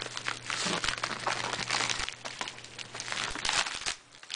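Plastic shipping mailer crinkling and rustling with many irregular crackles as it is handled and pulled open.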